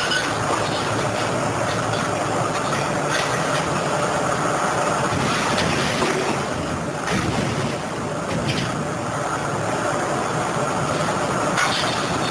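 Heavy machinery running with a steady rumble, broken by scattered sharp knocks and clanks.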